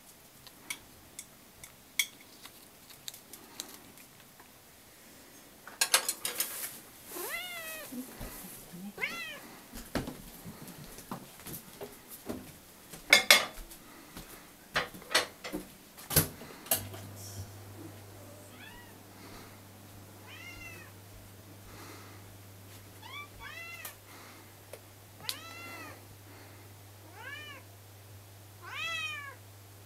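Domestic cats meowing again and again, each call rising then falling, demanding their breakfast. Sharp clicks and knocks come in the first half, and a low steady hum starts about halfway through.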